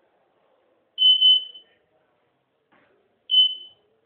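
Electronic beeper giving a single high-pitched beep about every two seconds, twice here (about a second in and past three seconds), each beep short and fading quickly.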